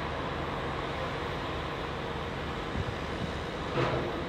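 Steady distant rumble of heavy machinery running at a work site, with a short louder knock near the end.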